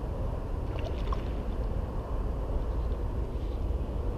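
Steady low wind rumble buffeting the camera microphone, with a few faint ticks about a second in.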